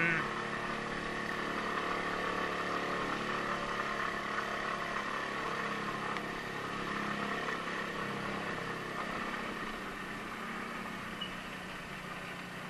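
Small two-wheeler's engine running steadily at low riding speed on a rough gravel lane, under a steady hiss of wind and road noise. A short knock comes right at the start.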